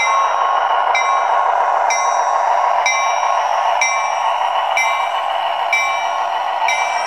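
HO-scale model F59PHi locomotive DCC sound decoders playing a running EMD 710 12-cylinder turbo diesel through small onboard speakers, with a locomotive bell ringing steadily about once a second.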